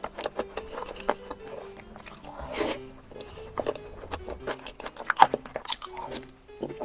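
Close-miked biting and crunching of chocolate, many sharp snaps and crunches in quick irregular succession, over soft background music.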